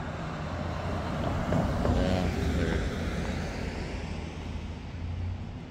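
A car driving past on the street, its engine and tyre noise swelling to a peak about two seconds in and then fading, with wind buffeting the microphone.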